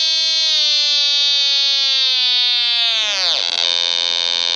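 Buzzy electronic tone from a homemade sound-effect generator, held steady and sagging slowly in pitch, then dropping sharply about three seconds in and settling on a lower steady buzz.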